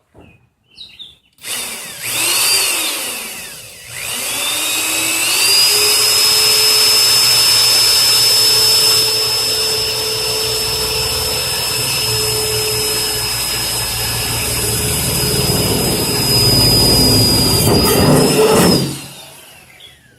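Electric drill boring a hole through a car hood. It spins up about a second and a half in, slows briefly, then runs steadily with a high whine before winding down near the end.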